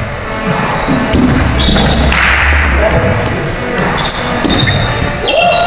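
Rubber dodgeballs bouncing and smacking off a gym's wooden floor, with short high sneaker squeaks and players' shouts echoing in a large hall.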